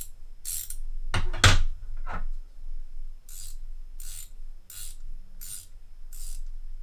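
Ratcheting combination wrench being swung back and forth, its pawl clicking in short bursts about every two-thirds of a second, with one louder clunk about one and a half seconds in.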